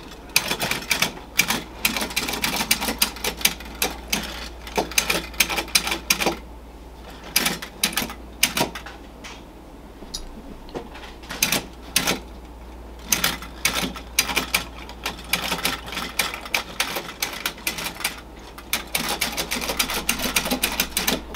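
Unique Art tin litho wind-up GI Joe and K9 pups toy walking under its clockwork spring. It makes a long run of rapid, irregular tin clicks and clatter, with the hinged helmet rattling as it steps. The clatter thins out for a few seconds midway and picks up again near the end.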